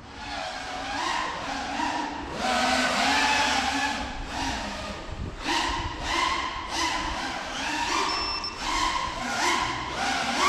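The motors and propellers of a 5-inch FPV quadcopter (ImpulseRC Apex with T-Motor F40 motors) whining in flight, the pitch rising and falling in quick surges as the throttle is punched and eased.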